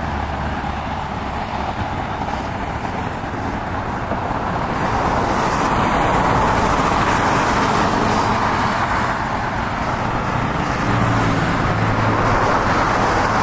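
Steady road traffic noise: cars running by, with a low engine hum coming in near the end.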